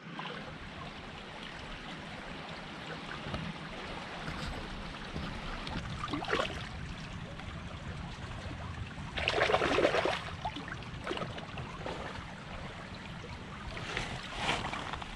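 Shallow creek water running steadily over gravel and stones, with a few short louder splashes, the biggest about nine seconds in.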